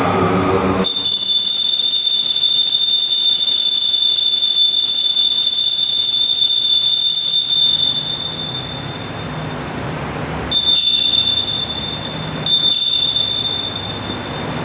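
Elevation bell sounding at the consecration: a high, steady ringing tone that starts suddenly about a second in, holds for several seconds and fades, then sounds again twice, briefly, near the end.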